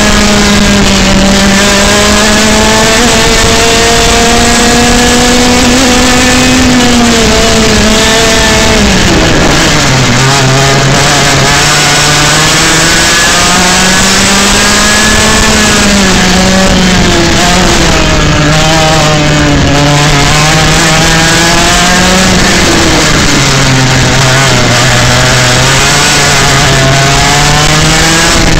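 Parilla 125cc two-stroke kart engine, heard onboard, loud and running hard as the kart laps the track. Its pitch drops sharply about nine seconds in as the driver lifts for a corner, then rises and falls again with the throttle, dropping low once more near the end.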